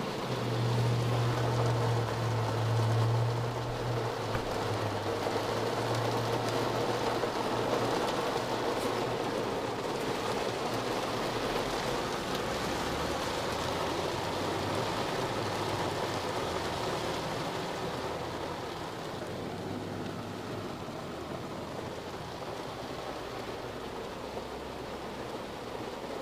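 Heavy rain falling on a car's roof and windows, heard from inside the cabin as a dense steady patter, with a low hum underneath that is strongest in the first several seconds. The rain grows a little quieter about two-thirds of the way through.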